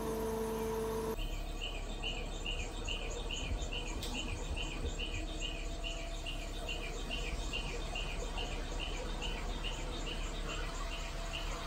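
A steady humming tone that stops about a second in, then a rhythmic high-pitched chirping, about three chirps a second, over the low rumble of the mobile crane's engine running.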